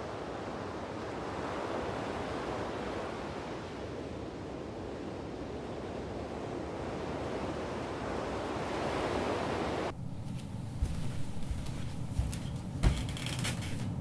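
Coastal wind-and-surf ambience: a steady rushing that swells and eases. About ten seconds in it cuts off abruptly to a quieter indoor background with a few scattered knocks and clicks.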